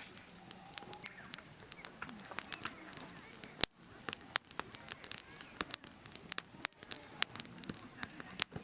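Campfire crackling: burning wood snapping and popping in irregular sharp clicks, with one louder crack about a third of the way through.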